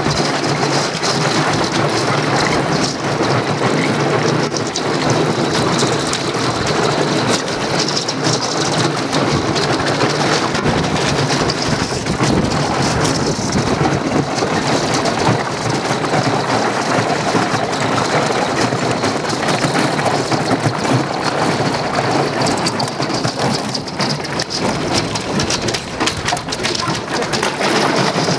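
Thin sheet ice on a canal breaking against a steel narrowboat's bow: a continuous dense crackle of many small clicks as the ice cracks and broken shards skitter across the frozen surface.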